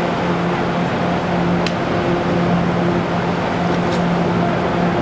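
Train pulling out of an underground platform into the tunnel: a steady mechanical drone with a constant low hum, and two faint clicks about two seconds apart.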